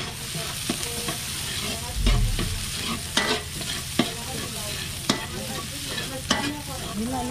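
Food sizzling in a hot pan while being stirred, with sharp scrapes and knocks of the cooking utensil against the pan roughly once a second and a low thump about two seconds in.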